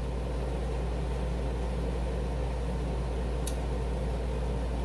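Steady low hum with an even hiss, like room tone from a fan or electrical equipment, and one faint tick about three and a half seconds in.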